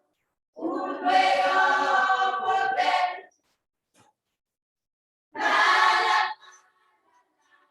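A group of voices singing a Christian song together: one sung phrase of about three seconds, a pause, then a second shorter phrase of about a second near the end.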